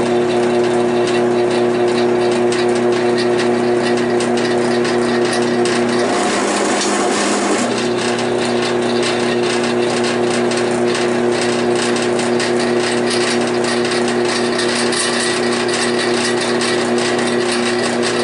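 Central Machinery 10-inch benchtop drill press running at 300 RPM as a twist drill bit cuts into mild-steel square tubing: a steady motor hum with a scraping cut on top. About six seconds in, the hum wavers and smears for a second and a half, then settles again.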